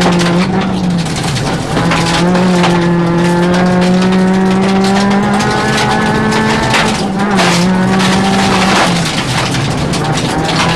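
Rally car engine heard from inside the cabin at speed, held at high revs and climbing slowly in pitch, then dipping sharply twice in the second half as the revs fall and pick up again. Short knocks and rattles from the car's body and road run through it.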